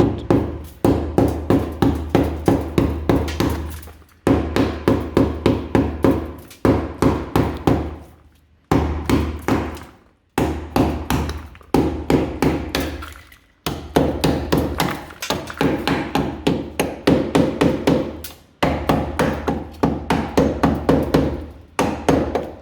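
Hammer blows on the rear wheel arch bodywork of a 1960 Ford Consul, in quick runs of about four strikes a second with short pauses between runs, the metal ringing under each run.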